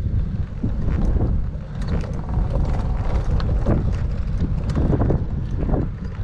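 Wind buffeting the microphone of a bicycle-mounted camera: a steady low rumble with irregular surges every second or so.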